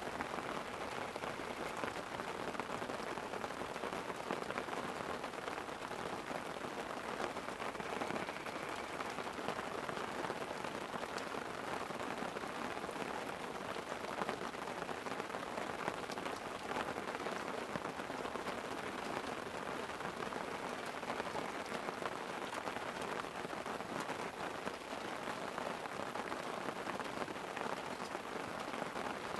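Light rain falling on a tent: a steady hiss made of many small, quick drop taps, even in level throughout, with no thunder.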